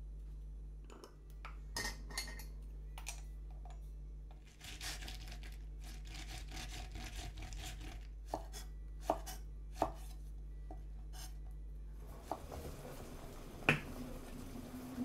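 Okra pods handled on a wooden cutting board: a few knife and hand knocks, then several seconds of gritty rubbing as the pods are rolled in salt (itazuri), then more sharp knocks on the board. Near the end, clicks and a louder clink of glassware and a bottle on the counter, with a brief ring.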